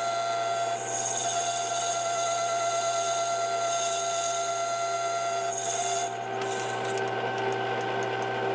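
A small Chinese 3-in-1 mill-lathe-drill combo running, its motor and gearing humming steadily with several whining tones, while a lathe tool turns down a Delrin bushing. A high hiss over the running machine drops away about six seconds in.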